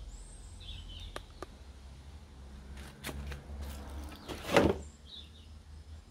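Outdoor background with a low rumble, a few faint bird chirps near the start and scattered light clicks, then one brief, louder scraping knock about four and a half seconds in.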